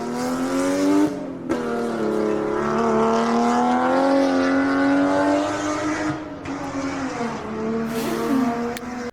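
Single-turbo BMW 135i inline-six at full throttle: the engine note climbs, breaks off briefly about a second in as it shifts, pulls up again and holds, then falls away near the end.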